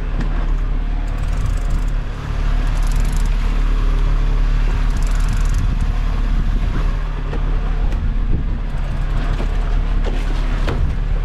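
A boat's engine running steadily, with the rush of wind and water over the hull.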